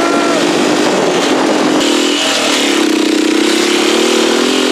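Dirt bike engine running steadily under the rider, heard from the handlebars. Its note breaks off briefly about two seconds in, then picks up again.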